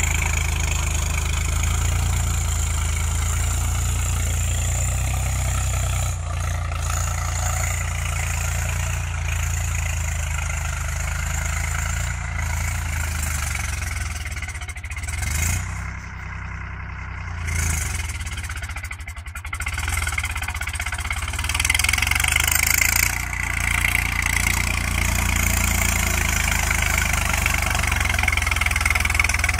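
Swaraj 744 FE tractor's three-cylinder diesel engine running steadily under load while pulling a cultivator through the field. The sound drops for a few seconds about halfway through as the tractor moves off across the field, then grows louder again as it comes back close.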